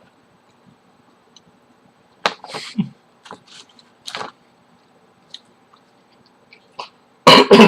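Scattered eating sounds from a person eating takeout Chinese food: short clicks, a low thud and noisy bursts, with the loudest, sharpest burst near the end.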